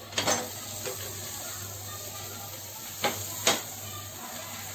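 Wooden spatula knocking and scraping on a tawa as a toasting sandwich is flipped: a clatter just after the start and two more knocks about three seconds in, over a steady low hum.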